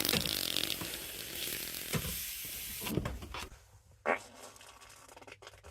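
A crackling hiss that fades out after about three seconds, then one short sound about four seconds in.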